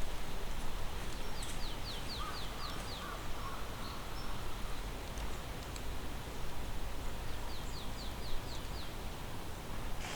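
Strong wind blowing with a steady low rumble. A small bird twice sings a quick trill of six or seven short falling notes, about a second and a half in and again about seven seconds in.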